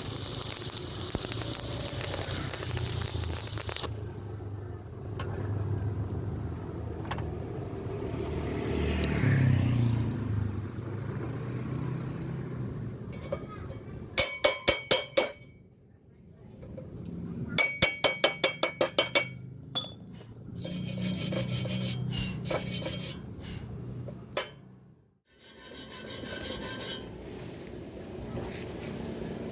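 Stick-welding arc crackling and hissing for the first few seconds, then scraping on metal with two quick runs of rapid, ringing metal taps about midway, typical of cleaning slag off a weld bead on steel tubing.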